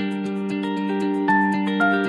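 Instrumental background music: gentle held notes that change pitch every half second or so.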